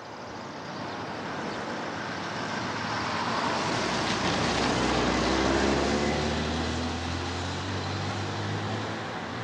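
A 1980 Holden Commodore with a 2.85-litre six-cylinder engine driving past. The engine and tyre noise grow louder as it approaches and peak about five seconds in, then the engine note drops in pitch and fades as the car moves away.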